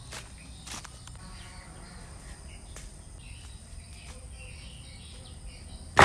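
Tropical forest ambience: a steady high insect drone with faint chirps, and a few light crunches of sandalled footsteps on dry leaf litter in the first few seconds.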